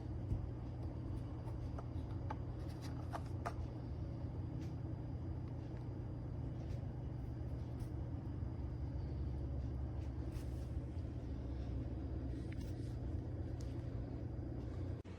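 A steady low mechanical hum, with a few light clicks in the first few seconds.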